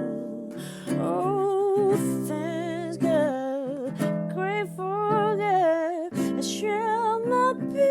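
Music: acoustic guitar accompaniment under a melody line that wavers in pitch, with no words heard.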